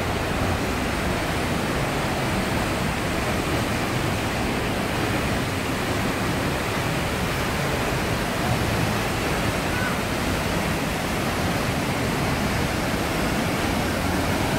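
Tegenungan waterfall roaring: a steady, even rush of falling water with no breaks.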